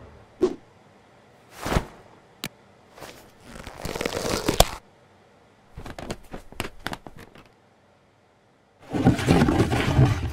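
A string of short knocks, clicks and whooshes, with a rising rush about three seconds in. About nine seconds in comes the loudest sound, a dense rattling rush of a heap of plastic debris (bottles, caps and fragments) being tipped out onto a table.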